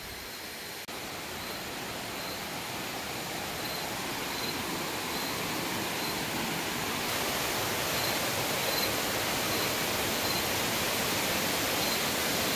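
Steady rushing noise of the Gadagada waterfall, a continuous fall of water that slowly grows louder.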